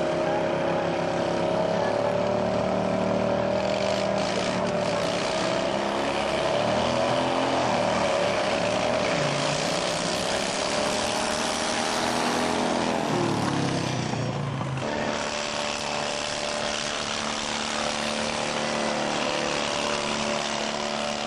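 Modified racing riding-lawnmower engines running hard and loud in a drag race. The engine pitch wavers and dips twice around the middle, then holds steady to the end.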